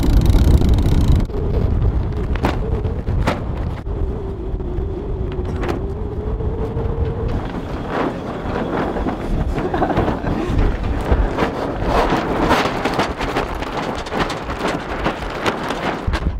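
Wind buffeting the microphone for about the first second, then irregular clicks and knocks of a sailboat's cockpit winch and rigging, growing denser in the second half, as the jammed in-mast furling mainsail is worked out.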